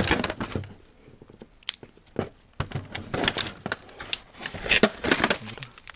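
Thin clear plastic clamshell tray of wafer cakes being handled and opened. It gives crinkling, crackling plastic in several short bursts, with a quieter stretch about a second in.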